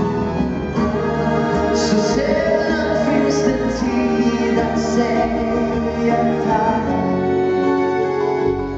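Live band music with a singing voice over held notes.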